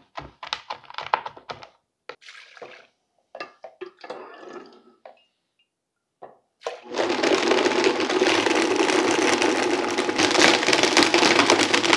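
Vitamix blender motor starting about seven seconds in and running steadily at high speed, blending chopped gummy candy with kombucha; this is the loudest sound. Before it, a quick run of knife taps chopping on a cutting board, then liquid ladled into the blender jar.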